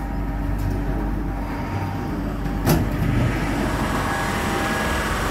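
Kawasaki C151B MRT train heard from inside the carriage as it slows into the station: a steady running rumble with a faint motor whine, and one sharp clunk a little past halfway.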